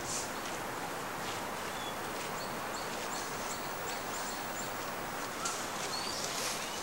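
Outdoor park ambience: a steady background hiss with birds chirping. A run of short, quickly repeated high chirps comes in the middle, and a few single rising calls come near the end.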